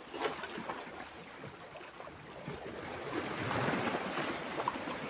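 Small sea waves washing and splashing against large boulders at the waterline, swelling about three seconds in.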